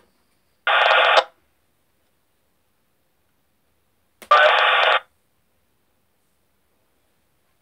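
Radio scanner on a narrow-band FM fire-service channel receiving two short signalling bursts, each about half a second long and a few seconds apart, with a faint click just before each. There is no speech in them.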